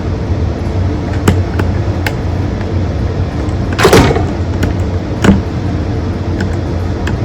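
Light clicks and knocks of hands working wires into a doorbell chime box, with a short scrape about four seconds in and a louder knock about a second later. A steady low mechanical hum runs underneath.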